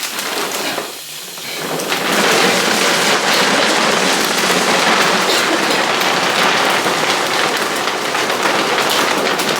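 Dry dog kibble pouring into a storage bin: a steady, dense rattle of many small pellets, which swells up about two seconds in.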